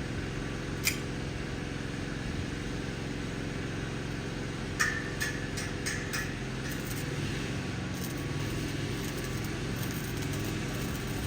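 An engine running steadily, with one sharp click about a second in and a quick run of sharp clicks about five seconds in, the first of them ringing briefly.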